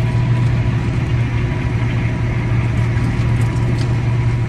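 Tractor engine running steadily, heard from the cab: an even low drone with a faint thin whine above it.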